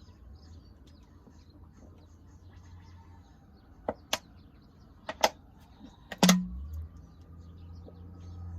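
A few short, sharp clicks and knocks, the loudest about six seconds in, over quiet background noise, with a low steady hum coming up near the end.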